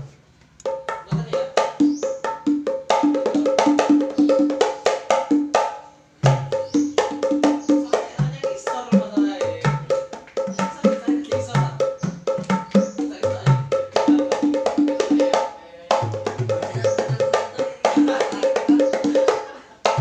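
A 'kempul mini' set of five wooden hand drums with rawhide heads, each tuned to its own pitch, played with bare hands in fast rhythmic patterns that mix high slaps and deep bass strokes. The playing stops briefly at the very start and again about six and sixteen seconds in.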